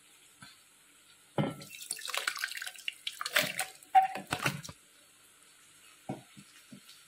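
Chunks of scooped watermelon flesh and juice tipped into a stainless-steel mixer-grinder jar, splashing and plopping for about three seconds, starting about a second in. A few soft knocks follow near the end.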